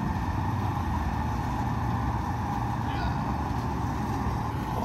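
Golf cart driving along: a steady running noise with a low hum and a faint constant whine.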